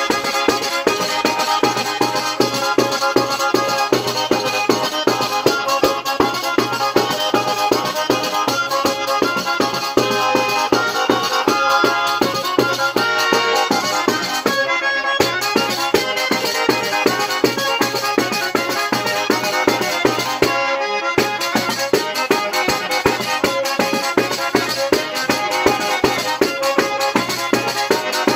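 Calabrian tarantella played on an organetto (diatonic button accordion) with a tamburello frame drum beating a steady rhythm. Twice the deepest and highest sounds drop out for a moment, about halfway and about three-quarters of the way through.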